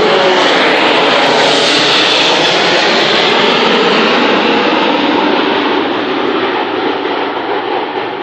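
A jet airliner's engines running loud as the plane passes close by, with a whine that slides down in pitch near the start. The noise fades steadily over the last few seconds as it moves away.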